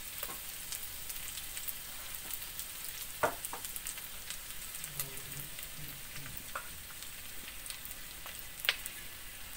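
Scrambled egg, chili and shallots sizzling in oil in a steel wok: a steady hiss with scattered crackles. Two sharp knocks stand out, one about three seconds in and a louder one near the end.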